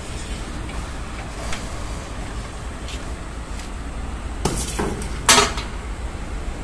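Steady low rumble of a furnace burner, with a few metal clinks and two louder metallic clanks about four and a half and five and a half seconds in.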